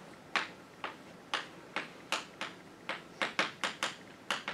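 Chalk writing on a blackboard: an uneven run of short taps and scrapes as letters are written, about three a second, coming quicker toward the end.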